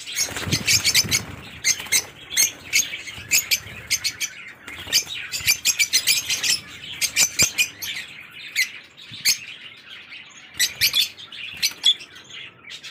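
Lovebirds chirping: many short, shrill, high chirps in quick, overlapping succession, with a low rumble in the first second.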